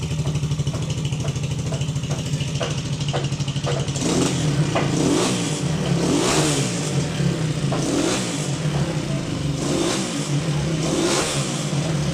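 Single-cylinder, air-cooled 250cc motorcycle engine idling steadily, then revved in a series of short throttle blips, each rising and falling, about one every second or so from about four seconds in.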